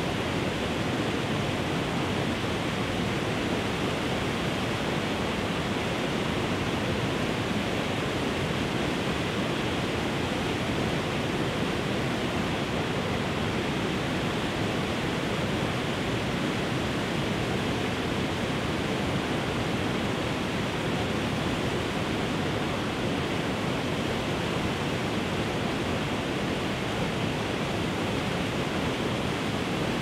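Waterfall spilling over rock into a pool: a steady, even rush of falling water.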